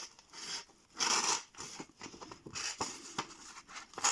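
Pocket-knife blade being drawn through material in a cutting test, making rough rasping strokes. The loudest stroke comes about a second in, followed by lighter scraping and small ticks. The edge cuts, but not very well: it is dull and needs stropping.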